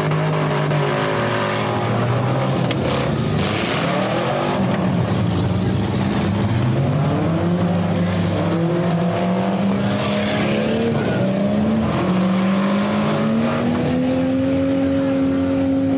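Several demolition derby cars' engines revving and running at changing speeds, their pitch repeatedly rising and falling over a steady din, with one engine climbing and holding a higher pitch in the last few seconds.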